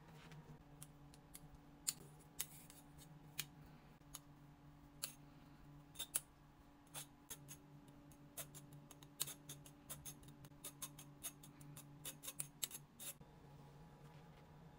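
Quiet, irregular metallic clicks and ticks from a fine-mesh metal sieve as cooked egg yolk is sifted through it, starting about two seconds in, getting denser in the second half and stopping shortly before the end. A faint low hum runs underneath.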